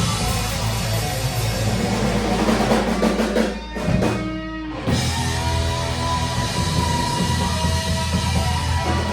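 Live rock band playing electric guitar, bass and drum kit. About four seconds in, the drums and bass drop out for about a second, leaving a few held notes, then the full band comes back in.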